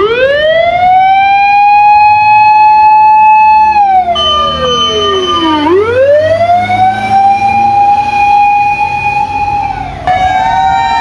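Fire engine's mechanical motor siren wailing: it winds up quickly from a low pitch, holds a high steady tone for a few seconds, falls away, then winds up and holds again. Near the end its pitch drops again as a second siren joins, over the low rumble of the truck.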